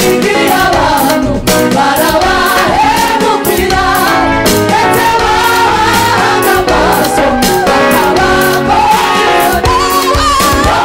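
Gospel choir singing over a band with a steady beat, in Rwandan gospel style.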